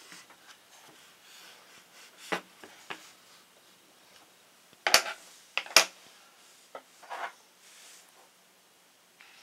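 A few sharp plastic clicks and knocks as hands handle the Parkside sharpening station's housing. The two loudest come about a second apart near the middle.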